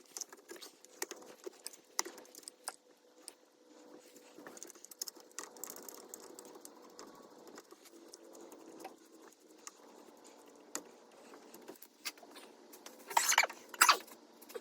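Small metal tools and parts clicking and clinking as they are handled during hands-on work on a car, in scattered irregular taps, with a couple of louder clanks near the end.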